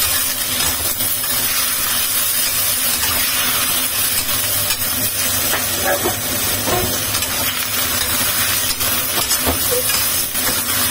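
Beef and onion stir-frying in a hot wok with the sauce in: a steady sizzle and hiss, with a few light scrapes of the metal spatula against the wok.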